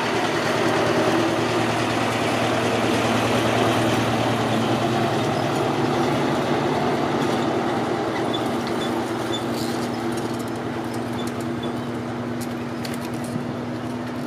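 Engine of a small tourist road train running steadily close by, a low even hum that slowly grows quieter in the second half as the train moves off.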